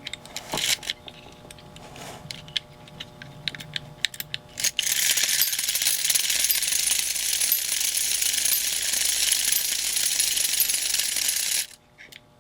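Spring-wound clockwork motor of a Marx Commodore Vanderbilt sparkling toy locomotive: a run of scattered mechanical clicks, then about five seconds in the motor runs with a loud, steady high whirr that cuts off suddenly near the end.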